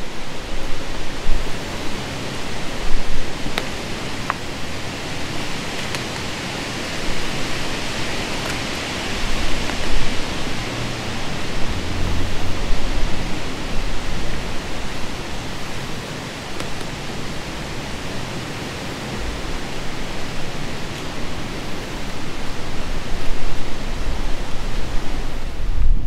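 Strong wind gusting through the treetops: a steady rush of leaves that swells and eases, with wind buffeting the microphone as a low rumble underneath.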